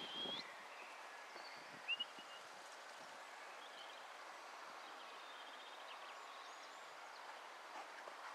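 Quiet outdoor ambience: a steady faint hiss of background noise with a few short bird chirps, one about two seconds in. A dog's running footfalls on sandy ground fade out in the first half-second.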